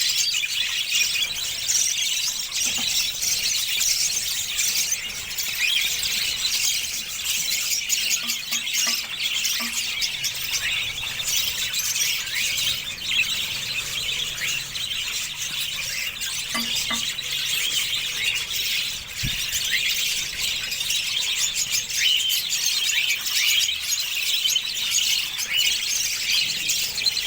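Many budgerigar chicks calling at once: a steady, dense chatter of high squeaks and chirps with no break.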